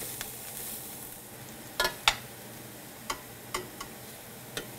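Squirrel pieces and chopped onions sizzling as they brown in an aluminum pot, stirred with a metal spoon that scrapes and clinks against the pot about six times, the two loudest knocks close together about two seconds in.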